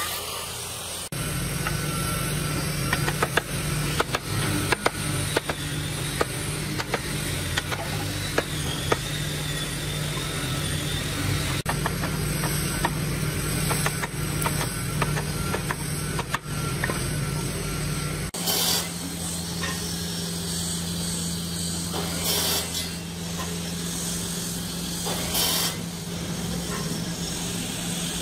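A workshop machine motor runs with a steady low hum, and many sharp taps and clicks fall over it for most of the first two-thirds. About two-thirds of the way through the sound cuts to a different steady hum with few clicks.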